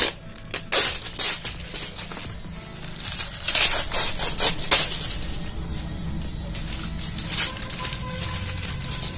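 Clear plastic shrink wrap crinkling and crackling in loud bursts as it is peeled off a canvas board, over background music.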